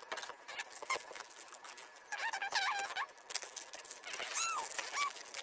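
Foil booster-pack wrapper being crinkled and torn open by hand: a string of crackles and rustles, with a few short high squeaks about two seconds in and again near the end.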